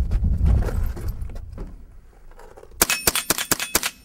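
A rapid string of about eight .22 rimfire gunshots within about a second, near the end, with a metallic ring from steel targets carrying through them. Before the shots, a low rumbling noise on the microphone.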